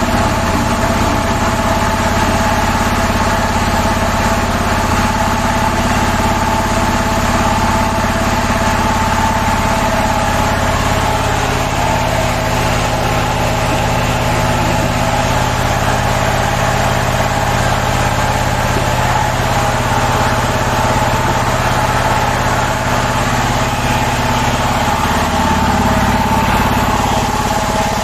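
Used three-phase hydraulic press's electric motor and hydraulic pump running steadily, a constant hum with a steady whine over it; the low hum shifts slightly about halfway through and again near the end.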